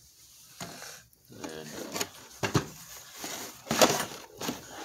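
Large cardboard model-kit box handled on a workbench: picked up, slid and turned over, with scraping and several irregular knocks, the loudest nearly four seconds in.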